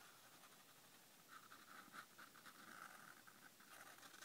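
Faint scratching of a felt-tip marker drawn across notebook paper as an outline is traced, the strokes strongest from about a second in.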